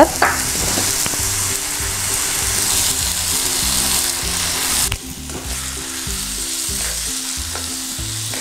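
Mashed aubergine and onion mixture sizzling in hot oil in a frying pan while a wooden spatula stirs it. The sizzle gets quieter about five seconds in.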